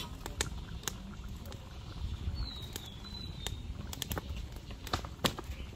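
A metal slotted spatula clicking and scraping irregularly against a large iron karahi as simmering chicken curry is stirred over a wood fire, over a low steady rumble. A short whistled call comes about halfway through.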